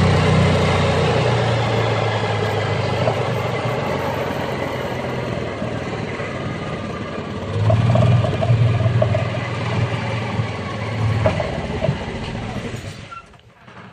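1987 Club Car golf cart's flathead engine running on a test drive after a carburettor mixture adjustment. It gets louder about seven seconds in, holds, then dies away near the end as the cart slows. The owner judges it to be running a little better.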